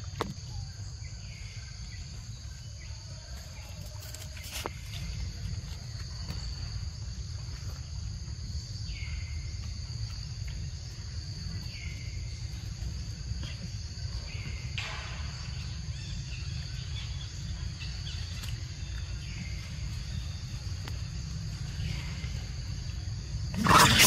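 Forest insects droning steadily at a high pitch, with a short falling chirp repeating every couple of seconds and a low rumble underneath. A loud, noisy burst starts just before the end.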